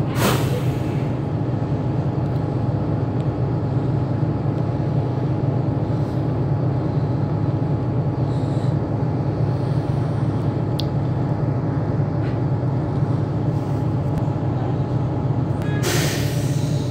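Bus engine running with a steady low drone, heard from inside the passenger cabin. Two brief bursts of rustling noise stand out, one at the start and one near the end.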